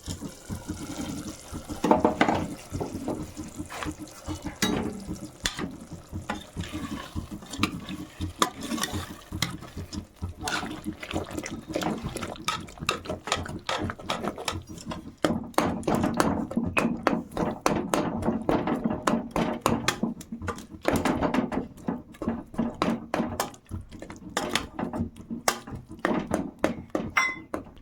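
Water sloshing and pouring in a vessel, with many irregular clinks and knocks.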